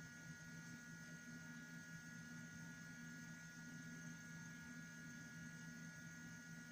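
Near silence: a faint steady electrical hum with a few thin high whining tones over it, unchanging throughout.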